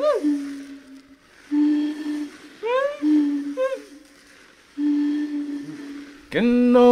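A lone voice, unaccompanied, hums a few held low notes with short rising vocal swoops between them. Near the end it breaks into full-voiced singing on a long held note.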